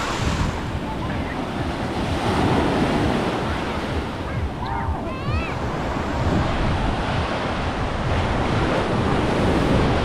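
Sea waves washing onto a beach, swelling and easing every few seconds, with wind rumbling on the microphone. A brief high call sounds about halfway through.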